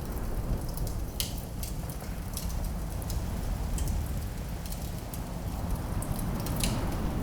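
Wood fire crackling and popping, irregular sharp snaps over a steady low rumble, with a few louder pops, one about a second in and one near the end.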